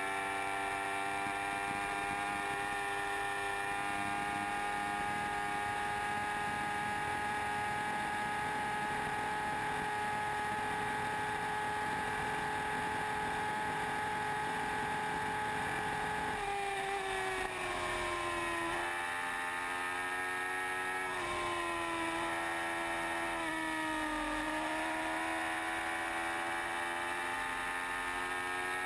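Yamaha R1 inline-four motorcycle engine at high revs near top speed, heard from the bike itself over wind rush. It holds a steady high whine for about sixteen seconds, then its pitch drops, rises and falls several times as the throttle is eased and reopened, and climbs again near the end.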